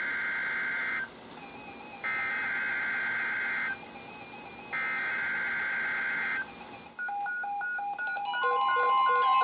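NOAA Weather Radio SAME header: three bursts of warbling digital data tones, each about a second and a half long and a second apart, which mark the start of a new warning broadcast. From about seven seconds in, several weather radio receivers answer with their own alert beeps, pulsing at different pitches. Just after that the steady 1050 Hz warning alarm tone starts.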